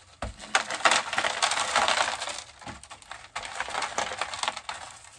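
Chunky aroid mix of bark pieces and perlite crunching and rattling as a root ball is worked out of a small plastic pot, loose chunks falling into a plastic tray. It is busiest in the first half and thins out towards the end.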